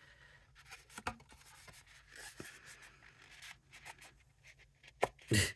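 Folded cardstock being handled and pinched into its creases: soft paper rustling and scraping with small clicks, and a louder crackle of handling near the end.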